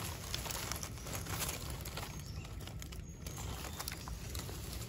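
Faint rustling of dry leaf litter and small handling ticks as a yellow amanita mushroom is cut free with a knife and picked up.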